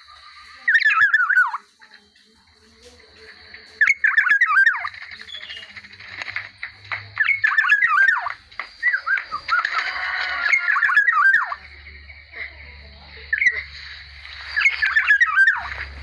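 Black-naped oriole calling in about six short bursts of quick, warbling whistled notes a few seconds apart.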